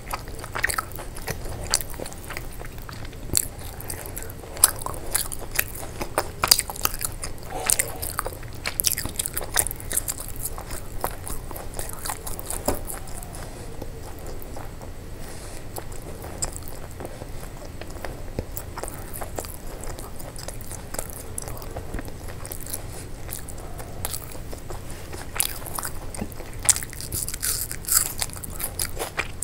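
Close-miked eating: a person biting and chewing food, with many irregular crunches and mouth clicks, sparser through the middle stretch.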